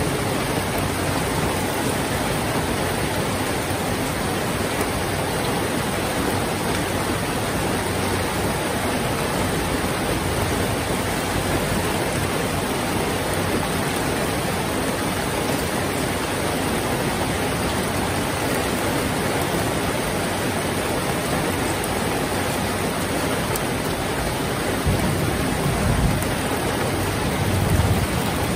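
Heavy rain falling steadily: an even, unbroken hiss of downpour. Near the end come two brief low thumps.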